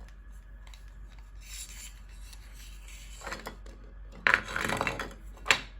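A cable rubbing and scraping as it is pulled through 3D-printed plastic parts by hand. Quiet at first, then scraping bursts about three and four seconds in, with a sharp plastic click just before the end.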